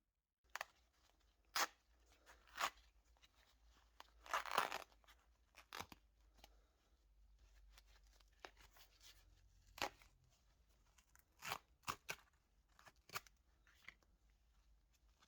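Irregular handling and workshop sounds: sharp clicks and taps spaced a second or so apart, with a longer rustling scrape about four and a half seconds in.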